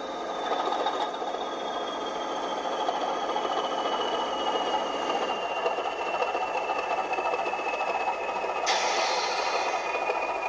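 Model railway train running past: a model Class 20 diesel locomotive hauling Presflo cement hopper wagons, with a steady rolling, rattling run and a high whine that slowly falls in pitch. A hiss comes in sharply near the end.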